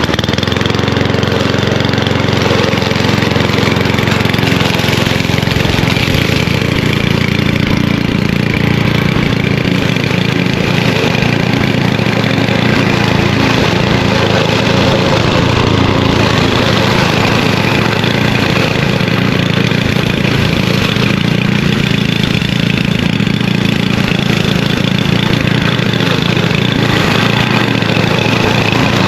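Petrol lawnmower engine running steadily, now that water and rust have been cleaned out of its carburetor nozzle.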